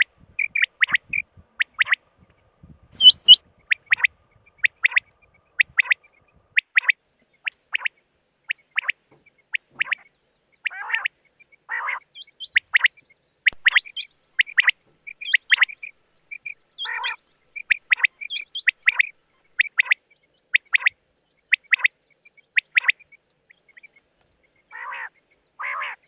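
Rain quail calling: a steady run of short, sharp, high-pitched notes, often in quick pairs, about one or two a second, with a few lower, rougher calls mixed in.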